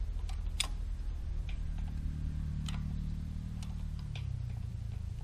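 Half-horsepower shallow well pump running with a low hum during priming, its tone dropping slightly about four seconds in. Sharp clicks and taps from hands working the fittings on top of the pump, the loudest about half a second in.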